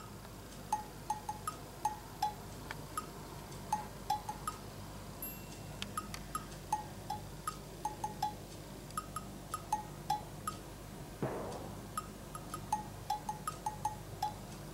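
Light background music of plinking, bell-like mallet-percussion notes, several a second, with a brief rising sweep about eleven seconds in.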